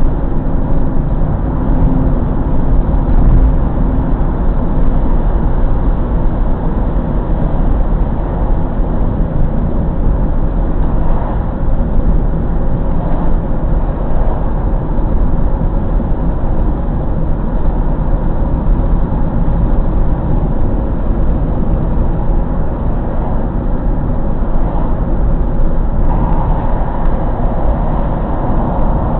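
Car driving at a steady cruising speed: an even, low rumble of engine and tyre noise heard from inside the cabin.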